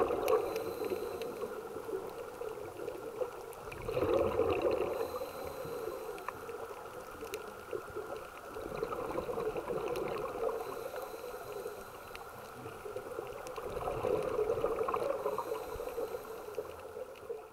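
Muffled underwater water noise with bubbling and gurgling, swelling and fading twice.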